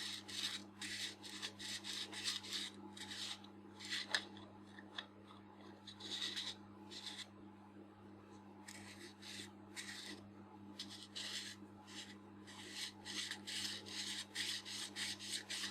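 Greased metal focusing-helicoid parts of a Nikon 50mm f/1.4 lens being screwed together and turned back and forth by hand. They rasp in short scratchy strokes, about three a second, with a couple of brief pauses.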